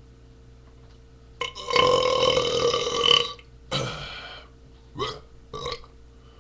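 A man belching loudly: one long, pitched belch of about two seconds, then a shorter belch and two brief ones.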